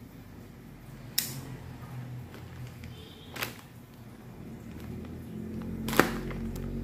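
A cardboard parts box being opened by hand with a sharp blade: three short sharp clicks and snaps, about a second in, in the middle and a louder one about six seconds in.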